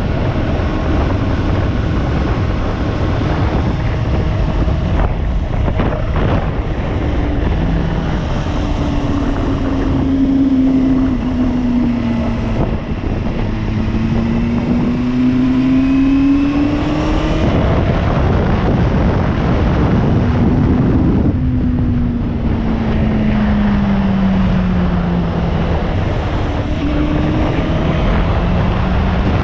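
Motorcycle engine running under way, its pitch rising and falling several times as it speeds up, changes gear and slows down, with steady wind rush on the microphone.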